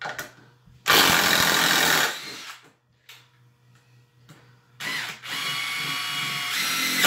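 Cordless impact driver running in two bursts, driving deck screws into wood: a loud burst about a second long, then after a pause a longer, somewhat quieter run that steps up in pitch near the end.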